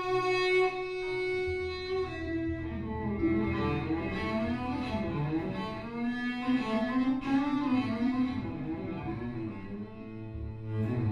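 Cello being bowed: a long held note, then from about two seconds in a moving melodic line over a low sustained note.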